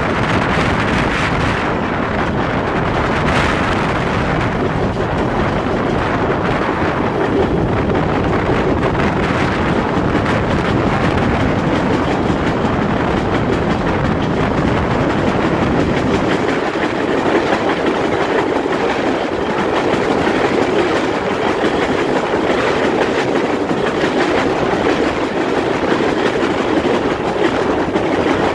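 Steel passenger coach rolling along the track: a steady rumble of wheels on rail with the clickety-clack of the wheels over rail joints. About halfway through, the deep part of the rumble drops away and the sound thins.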